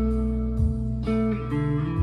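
Chapman ML1 Pro Hybrid electric guitar played through delay and reverb: picked notes that ring on and overlap, with new notes struck about half a second and a second in.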